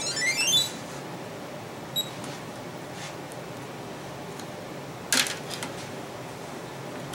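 Digital multimeter giving one short, high beep about two seconds in. A sharp click follows about five seconds in, then a few faint ticks, and a brief run of rising tones plays at the very start.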